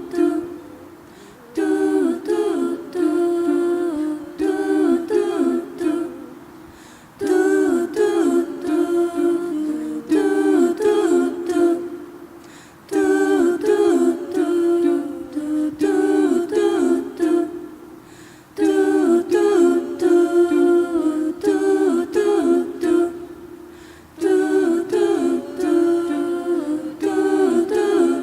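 Voices singing a cappella, humming a short melodic phrase with gliding notes that repeats as a loop about every five and a half seconds. Each repeat starts loud and fades before the next.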